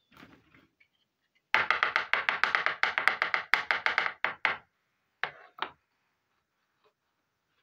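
A small plastic miniature toy scraped across a hard surface, making a fast run of rasping clicks for about three seconds, then two short taps as it is set down.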